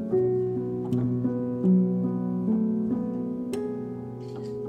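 Instrumental background music: a gentle melody of held notes, each note changing about every half second.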